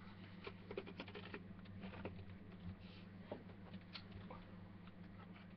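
Faint scattered clicks and taps of small objects being handled, over a steady low electrical hum.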